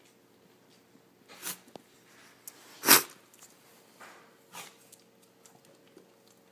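Short breathy sniffs and snorts from a pet close to the microphone, four of them, with one much louder snort or sneeze about three seconds in.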